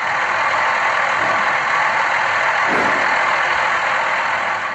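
Bulldozer sound effect: a heavy engine running steadily, with a hissy, thin tone.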